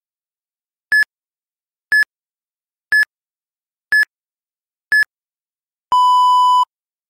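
Electronic timer countdown: five short, high beeps one per second, then one longer, lower beep. This is the countdown that marks the switch between a one-minute running interval and a one-minute recovery.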